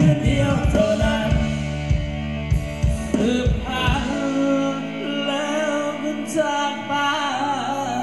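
Live band music for a Thai ramwong dance, with a singer over held keyboard-like chords. The drum beat stops a few seconds in and comes back near the end.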